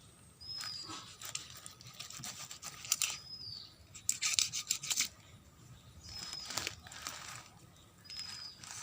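Knife cutting through a large catfish: rasping, tearing strokes in several bursts, the loudest about four seconds in.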